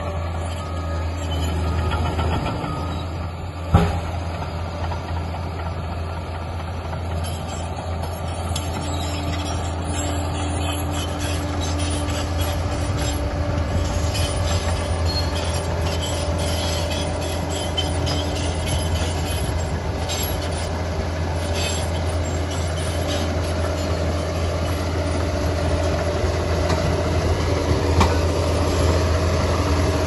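Liebherr PR 746 crawler dozer's diesel engine running steadily under load as it pushes earth with its blade, with the clank and squeal of its steel tracks, growing gradually louder as it nears. A single sharp knock about four seconds in.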